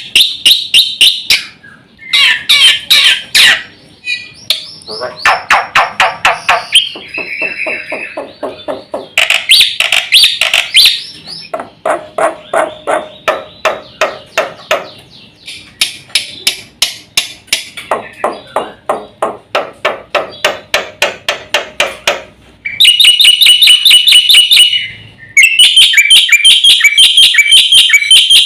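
Black-winged myna (jalak putih) singing a long, varied song of rapid repeated chattering and whistled notes, changing phrase every few seconds. It turns louder and harsher about three quarters of the way through.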